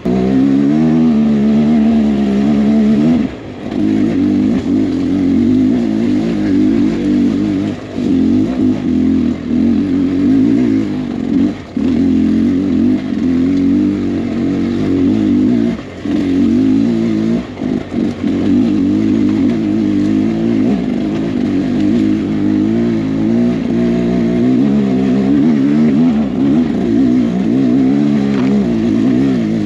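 Beta X-Trainer 300 two-stroke dirt bike engine revving up and down under riding throttle, with the revs dropping briefly several times as the throttle is rolled off.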